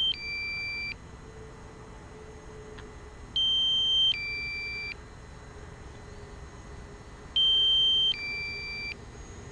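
Drone remote controller's low-battery alarm: an electronic two-part beep, one tone followed by a lower one, repeating about every four seconds, three times. It warns that the aircraft battery is nearly flat.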